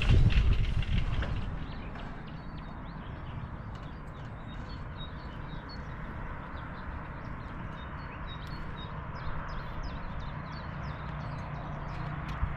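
Mountain bike rolling along a trail: a steady low tyre-and-wind rumble with many light, scattered ticks. It is louder for the first second or two, then settles.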